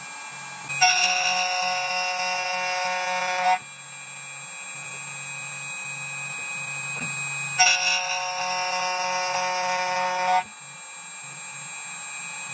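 2m2tank CNC key cutting machine milling a copper key blank: a steady spindle whine, broken twice by a loud, high, ringing screech of about three seconds that stops abruptly, as the cutter passes through the copper.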